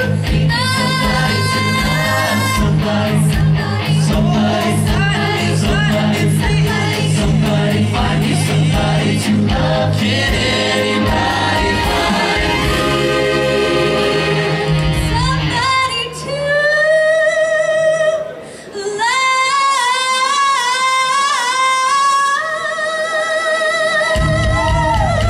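Show choir singing into microphones over accompaniment with a steady beat. About sixteen seconds in, the accompaniment drops out and the amplified voices carry on alone, holding long notes with vibrato, until the beat comes back near the end.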